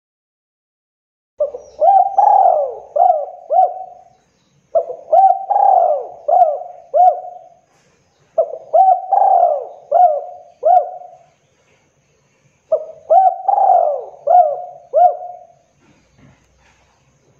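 Spotted dove cooing: four repeated song phrases, each a run of about five coos a few seconds long, with short pauses between them.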